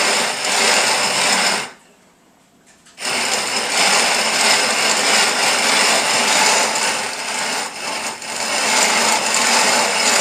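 GrainMaker hand-cranked grain mill grinding grain into flour: a loud, steady grinding rattle that stops for about a second just under two seconds in, then starts again and carries on.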